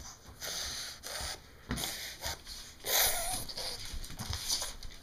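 A toddler huffing and breathing right against the microphone in short bursts, with rubbing noises as she presses up to it. The loudest huff, about three seconds in, carries a short voiced sound.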